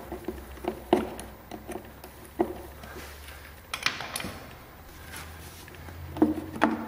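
Scattered sharp clicks and light knocks of a screwdriver working the hose clamp that holds the foam air filter on the ATV's intake, with a short rasping scrape about four seconds in.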